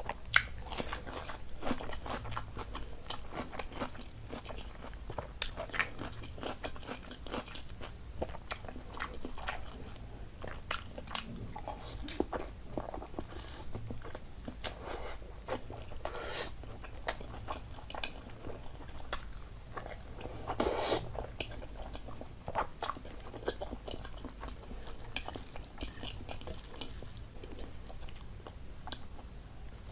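A person eating close to the microphone: steady chewing and biting with many small wet mouth clicks and occasional crunches, and one louder bite about 21 seconds in. A faint steady low hum runs underneath.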